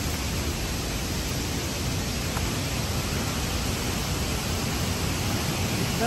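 Steady rushing of falling water, an even roar that holds unchanged throughout.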